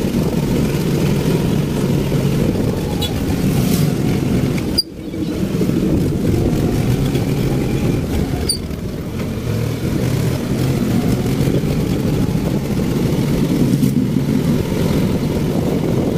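Motorcycle tricycle (motorcycle with sidecar) engine running steadily on the move, heard from the sidecar. There is a sudden brief drop in the sound about five seconds in.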